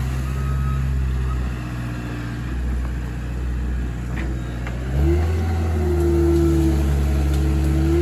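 Diesel engine of a large loader working under load as it pushes and rocks a hemlock to uproot it. About five seconds in the engine revs up and grows louder, with a higher whining tone held over it.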